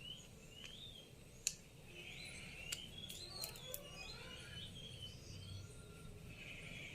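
Birds chirping in the background: short, repeated rising-and-falling calls. Sharp clicks cut in: a single loud one about a second and a half in, and a quick run of clicks around three to four seconds in.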